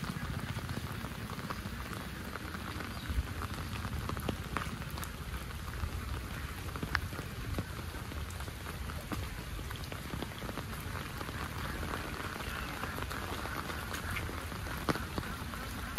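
Steady rain falling, with many sharp individual drop hits standing out from the hiss.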